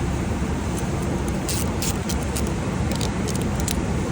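Steady low rumble of background machinery noise, with several short, light metallic clicks scattered through it from hand work on a Becker vacuum pump as its end plate is jacked off.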